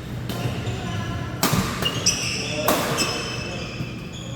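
Badminton rally: two sharp racket strikes on the shuttlecock about a second and a quarter apart, with high squeaks of court shoes on the floor between and after them.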